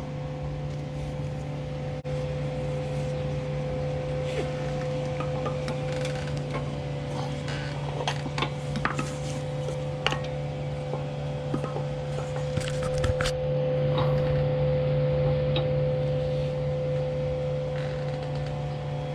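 Ratchet strap being fitted and cranked around motorcycle fork legs: scattered clicks and rattles, bunched near the middle, over a steady low hum.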